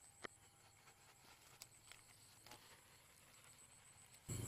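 Near silence: a faint steady high tone with a few soft clicks of leaves brushing against the camera. The sound jumps abruptly louder just before the end.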